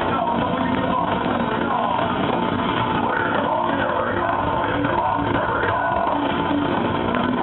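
Heavy metal band playing live: loud, steady distorted guitars with singing, heard from within the crowd.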